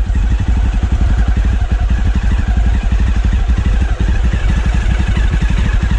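Motorcycle engine running while riding, its firing pulses a steady throb of about ten a second over a constant low rumble.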